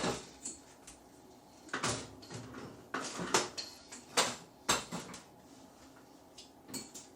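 A handheld shower spray head being handled, giving a series of plastic clicks and knocks, the loudest clustered a few seconds in.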